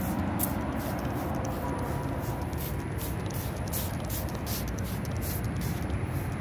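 Steady outdoor rumble like distant road traffic, with quick irregular high-pitched ticks over it.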